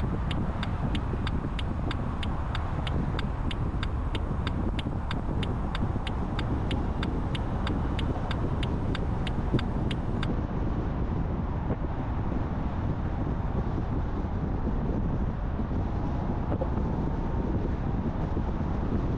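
Steady road and engine noise of a car driving at expressway speed. The turn-signal indicator ticks about three times a second while merging, then stops about ten seconds in.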